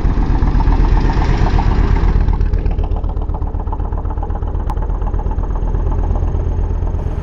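An engine running with a steady, rapid pulse, close and loud; its higher hiss drops away after about two seconds.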